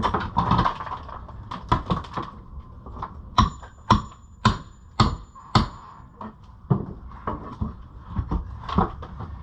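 Hammering and knocking on wood during demolition: a series of sharp blows, with an even run of about two strikes a second in the middle.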